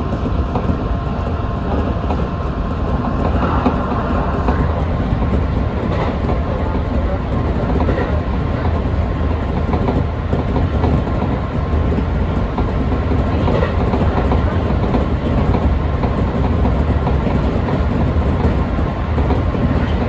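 Electric train running at speed on straight track, heard from inside the front of the train: a steady rumble of wheels on rail. A faint high whine fades out about four seconds in.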